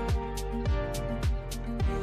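Background music with a steady beat: a deep kick drum about every 0.6 seconds, cymbal or snare strokes between, and plucked, guitar-like notes above.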